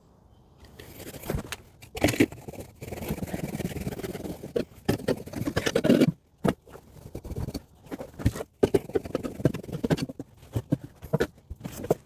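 A blade cutting through a Rockwool mineral-wool insulation batt: quick, irregular scraping strokes, with short pauses about six and eight and a half seconds in.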